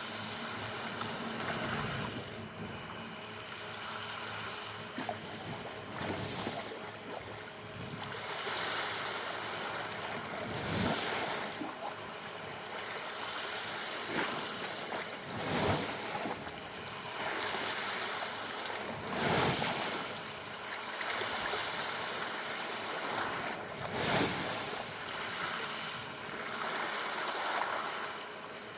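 Sea waves rushing in against the shore, a steady wash with a louder surge every four or five seconds, during high water that is put down to a spring tide and a typhoon.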